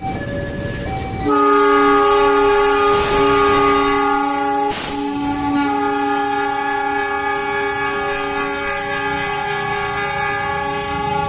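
Locomotive horn sounding one long, steady blast of several tones at once. It starts about a second in and holds for nearly ten seconds, with a couple of short hisses partway through.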